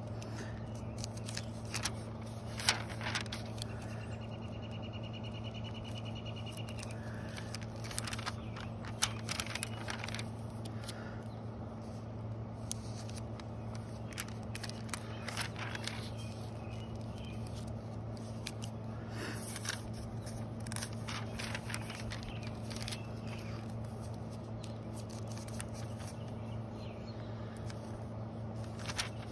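Glossy paper catalog pages being turned and handled, with scattered crisp rustles, over a steady low hum. A bird trills rapidly for a few seconds about four seconds in.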